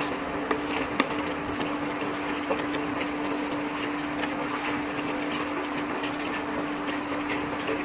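Wooden spatula stirring chunks of pork and vegetables in tomato sauce in a wok, with a few light scrapes and knocks against the pan, over a steady hum.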